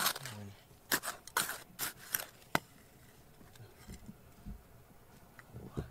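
Digging tool scraping and striking hard stone in short, sharp strokes: about six in the first two and a half seconds, then only a few faint knocks.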